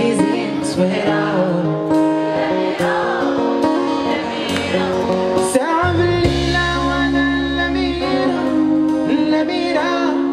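Live band playing a song: a man sings into a microphone over guitars and drums, with a deep, heavy bass note about six seconds in that lasts a couple of seconds.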